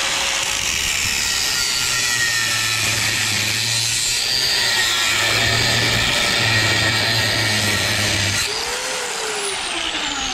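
Angle grinder with a cutoff disc cutting through the steel shell of a condenser fan motor, running steadily under load. About eight and a half seconds in the disc comes off the metal and the grinder spins down with a falling whine.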